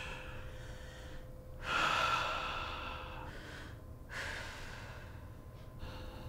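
Slow, deep audible breaths taken during meditation, three long breaths of a second or two each, the second the loudest.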